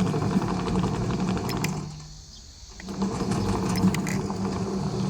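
Remote-control tracked chassis running under power with a steady mechanical hum. The hum cuts out about two seconds in for just under a second, then starts up again.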